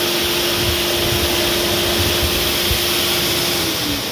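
A whirlpool bathtub's air blower motor for the bubble jets running with a steady whine and a rush of air, winding down in pitch near the end.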